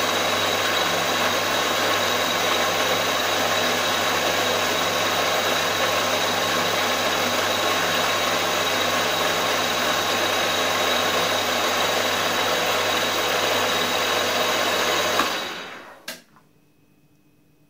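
Milling machine running steadily with an end mill cutting an aluminium cylinder block. The noise dies away about fifteen seconds in, followed by a single click.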